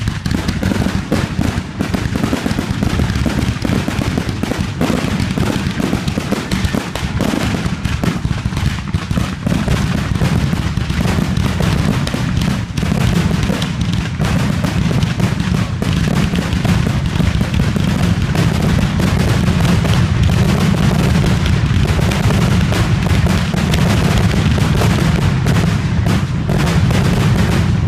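Aerial fireworks shells bursting in a nonstop rapid barrage, with overlapping booms and crackle and no break between reports.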